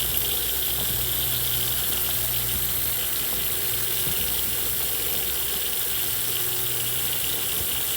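Steady hiss of tyres on a wet, slushy road with a constant low drone, heard from inside a moving vehicle.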